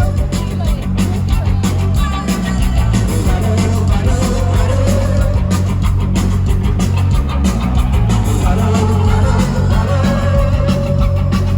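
Psychedelic rock band playing live: distorted electric guitars, heavy bass and a steady driving drum beat, with a held melodic line over the top.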